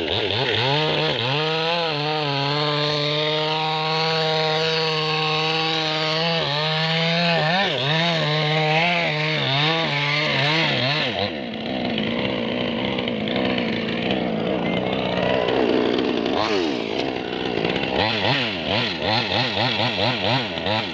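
Chainsaw running, its engine pitch wavering and dipping. About eleven seconds in the sound changes to a rougher, lower running.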